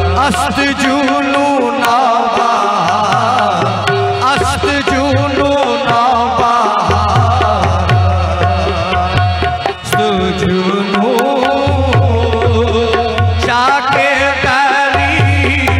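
Qawwali music: a lead voice sings long, wavering, ornamented lines over a steady hand-drum rhythm. The drum beat drops out briefly a few times.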